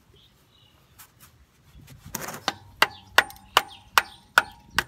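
Putty knife being tapped with a hammer into the gasket seam of a Dana 60 front differential cover to break the RTV seal: about seven sharp metallic knocks, roughly two and a half a second, each with a short ring, after a brief scrape about two seconds in.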